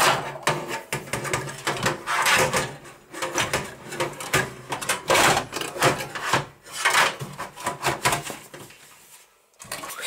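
A computer power supply being handled and fitted into a PC case: an irregular run of scrapes, rubs and knocks, dying away about a second and a half before the end.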